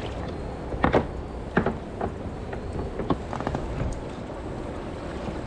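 Kayak on a moving river: a steady rush of water with wind on the microphone, and a handful of short knocks in the first three and a half seconds as the boat is paddled and nudged in to pull over.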